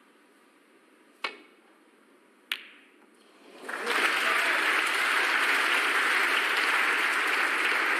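Two sharp snooker-ball clicks about a second and a quarter apart: the cue striking the cue ball, then the cue ball hitting the red. After that, audience applause builds up and keeps going for the potted long red.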